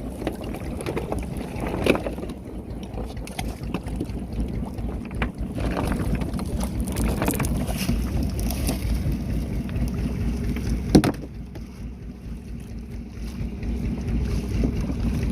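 Wind buffeting the microphone aboard a small fishing boat at sea, over a steady low rumble, with scattered knocks. There is a sharp knock about two seconds in and a louder one about eleven seconds in, after which the sound drops for a few seconds.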